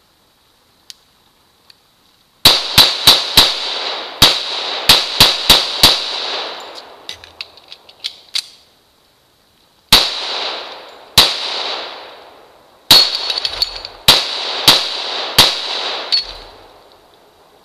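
Pistol shots hitting a steel reactive target, each shot followed by the plate ringing. Nine quick shots come first, then a pause with a few small clicks of a magazine change. Six more shots follow, spaced wider apart.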